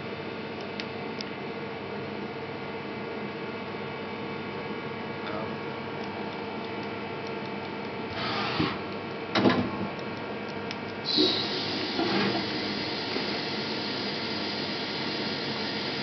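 Mazak Quick Turn 8 CNC lathe running: a steady mechanical hum with several steady tones. A short burst of noise comes about eight seconds in and a sharp knock about a second later. From about eleven seconds on a louder, wider rush of noise joins the hum.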